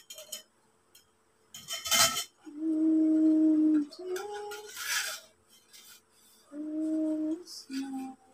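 Metal tubes of a telescopic clothes rack clinking and knocking together as they are handled and fitted, with one sharp knock about two seconds in. A woman hums a tune over it in a few long, held notes.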